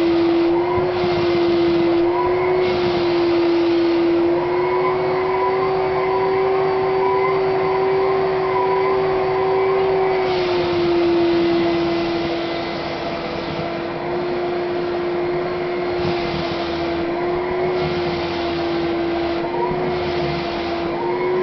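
Vacuum cleaner running steadily while being worked over a long-haired cat's coat, a strong steady whine over a constant hiss. The pitch of the whine wavers slightly, rising a little about four seconds in and dropping back about ten seconds in.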